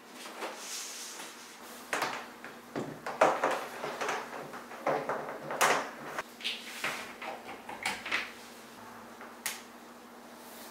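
Large plastic cutting mat and a glass globe lamp being handled on a desk: irregular knocks, scrapes and rustles as the mat is laid down and slid into place, loudest about three seconds in. A faint steady hum runs underneath.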